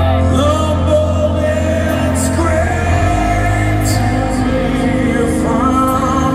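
Live rock band through a concert PA: a singer's held, gliding vocal line over electric guitar and steady bass, heard from within the crowd.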